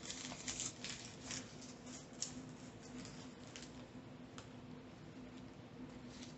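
Faint close-up eating sounds: chewing a crispy chicken sandwich dressed in honey mustard, with soft wet squishes and small crackles, busiest in the first couple of seconds.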